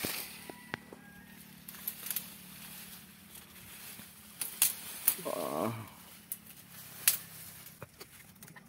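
Leaves and branches rustling, with scattered sharp knocks and scrapes, as a person climbs a tree trunk barefoot through dense foliage. About five seconds in, a short pitched call of about half a second is heard.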